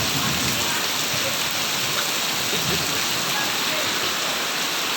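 Heavy rain falling, a steady, even rush of noise.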